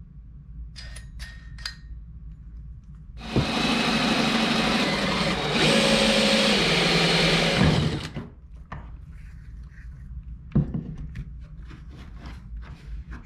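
Cordless drill spinning a 2 1/8-inch hole saw through the plastic hull of a kayak, a steady motor run of about four and a half seconds whose pitch steps partway through. A few short clicks come before it, and scattered knocks and scrapes follow as the cut is cleared.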